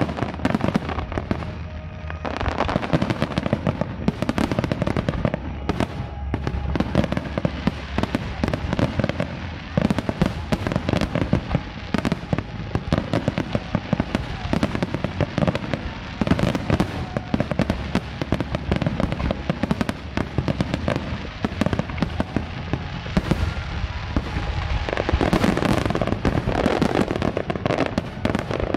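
Grand-finale fireworks barrage: many aerial shells bursting and crackling in rapid, overlapping volleys without a break, growing denser and louder near the end.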